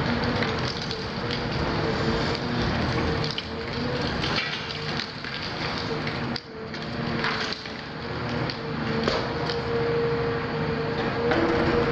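CAT 336F long-front demolition excavator working: its diesel engine and hydraulics run under load with a steady, wavering whine, over a continuous crackle and crunch of breaking material. The noise drops briefly about halfway through, then picks up again.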